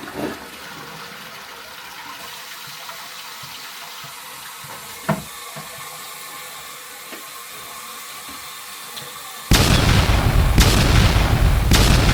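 Toilet being flushed with toilet paper in the bowl to retest it after the drain was cleared: water running steadily, a click about five seconds in, then a sudden much louder rushing noise near the end.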